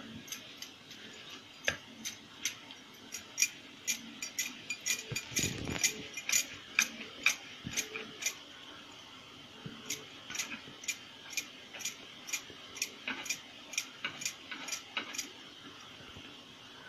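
Glass bangles on the wrists clinking with each back-and-forth stroke as hands roll dough into thin ropes on a wooden rolling board: a faint run of light clicks, about two a second, pausing briefly midway.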